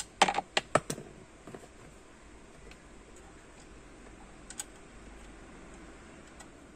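Fingers refastening a wire ring terminal and nut on a bolt: a quick run of about five small sharp clicks in the first second, then a single faint click about four and a half seconds in.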